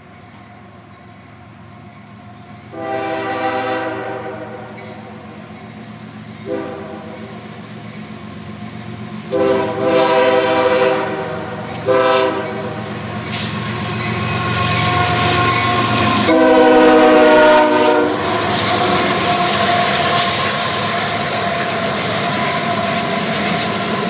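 The multi-chime air horn of a Union Pacific diesel freight locomotive sounds five blasts, long, short, long, short, long, for a horn show as it approaches, the last blast falling slightly in pitch as it passes. Under and after the horn, the locomotive engines and the wheels' rumble and clickety-clack on the rails grow loud as the double-stack train goes by.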